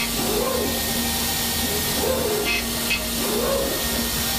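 CNC milling machine cutting a metal cylinder head under coolant spray: a steady hiss of spray and cutting over a steady hum, with a soft pattern that repeats every second or two.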